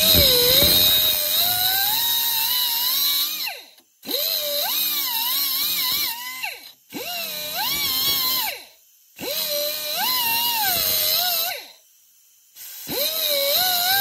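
Small high-speed cutoff wheel slitting the metal crimp ferrule of a transmission cooler hose. It runs in five bursts of about two to three seconds with short pauses between, and its whine dips and wavers in pitch as the wheel bites into the metal.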